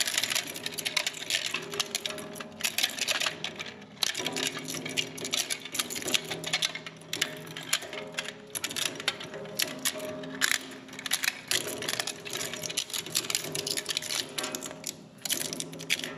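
Filamaker twin-shaft plastic shredder chewing up a rigid household plastic part: a fast, irregular clatter of sharp cracks and snaps as the cutter discs break the plastic apart, easing briefly about four seconds in before resuming.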